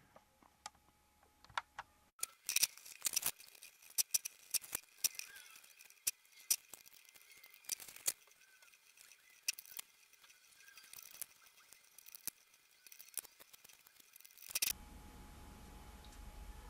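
Scattered sharp clicks and light knocks of objects being handled on a workbench, over faint rustling. Near the end the clicks stop and a steady low hum takes over.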